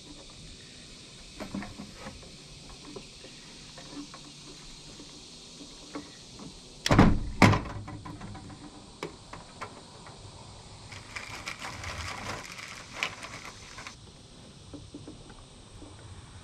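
Hands fitting fuel line onto a diesel heater's fuel filter and pump: small clicks and handling noises, two loud knocks about seven seconds in, and about three seconds of scraping rustle later on.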